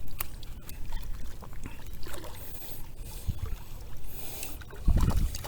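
Water splashing and trickling at the side of a kayak as a hooked fish is brought alongside, with scattered light clicks and knocks and a heavier low thump about five seconds in.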